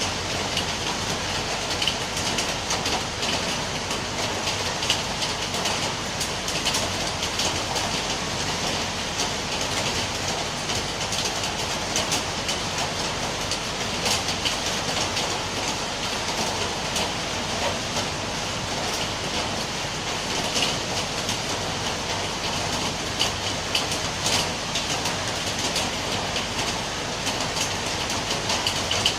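Steady rain, a continuous hiss with a dense patter of drops striking a surface.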